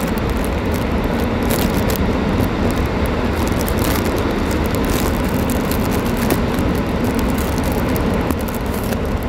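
Steady car cabin noise while driving: a low road and engine rumble under the air conditioning blowing, a harsh noise the driver blames on the air conditioner. A few faint ticks sound through it.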